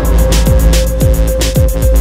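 Background music: an electronic track with a steady beat of deep kick drums and hi-hats over a held note.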